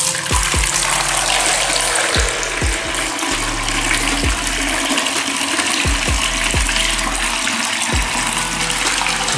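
Water running in a steady rush, over background music with a deep bass beat.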